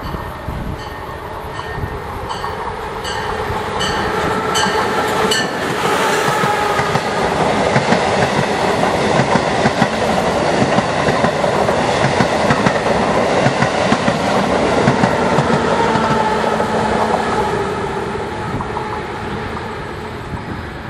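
Amtrak Acela Express high-speed electric trainset approaching and passing close by. A quickening series of high clicks over the first five seconds gives way to a loud rush of wheels and air for about ten seconds, then the sound fades as the train pulls away, with a falling whine near the end.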